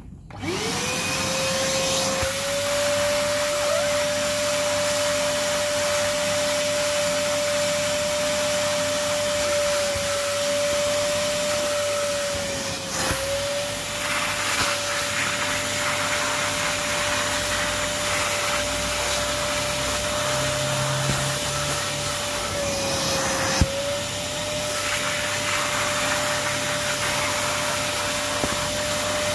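Fisch MB10LT 600-watt wet-and-dry vacuum cleaner switched on, its motor spinning up in about half a second to a steady whine over loud rushing air. The pitch sags briefly and recovers about thirteen seconds in, again around twenty-three seconds with a sharp click, and near the end.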